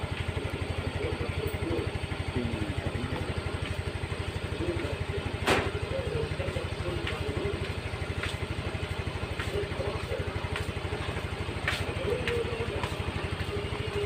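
Small motorcycle engine running at low speed with a steady, rapid putter, and a few light clicks and rattles, one sharper knock about five and a half seconds in.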